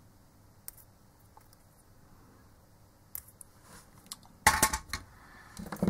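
Small clicks and taps from pushing metal contact pins into a plastic SATA connector housing on a hard-drive circuit board. There is one louder, brief scrape or clatter about four and a half seconds in.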